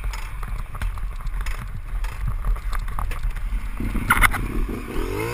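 Steady low wind and road rumble on a helmet-mounted action camera while a motorcycle is pushed along the road by hand, with scattered light knocks. About four seconds in, a rising pitched note joins in.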